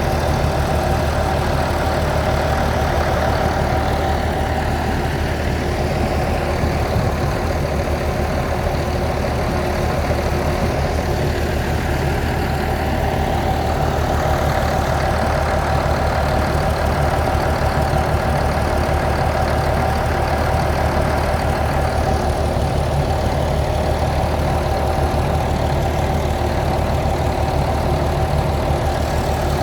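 Water well drilling rig's engine running steadily, a constant drone with a steady mid-pitched hum over it.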